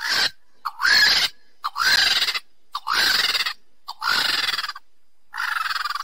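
Vulture calling: six harsh, raspy squawks, one about every second, each about half a second long.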